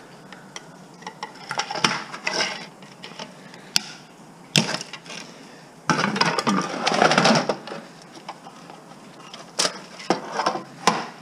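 Hand tools working a piece of scrap apart: irregular clicks, knocks and scraping as the parts are pried and loosened, with a longer, louder stretch of scraping about six seconds in.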